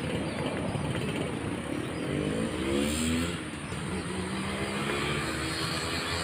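A vehicle engine rising in pitch as it speeds up about two seconds in, then running at a steady pitch, over a continuous rush of road noise.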